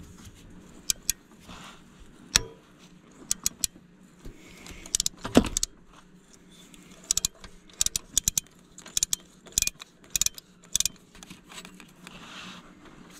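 Ratchet wrench clicking in short quick runs, with metal clinks, as it works the bolts on a 2003 Dodge pickup's alternator during an alternator replacement. There is one louder clunk about five seconds in.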